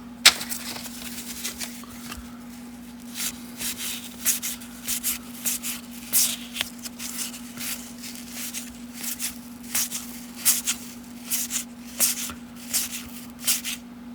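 1990 Topps baseball cards being flicked one by one off a stack, a quick papery snap with each card, about two a second. There is a sharp click right at the start, and a steady low electrical hum underneath.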